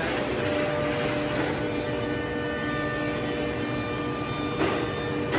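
Woodmaster CNC router spindle cutting a wooden panel with its router bit, a steady machine whine mixed with the rush of the dust extraction. A brief louder rasp about four and a half seconds in.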